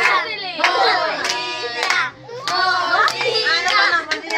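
Steady rhythmic hand clapping, a clap about every half second, with voices over it.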